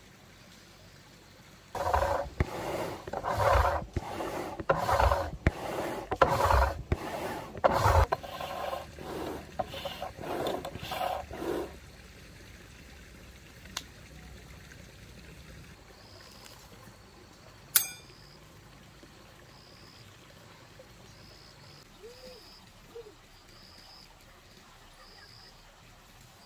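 Rhythmic scraping strokes, about two a second, for roughly ten seconds, then stopping. Faint high chirps repeat near the end.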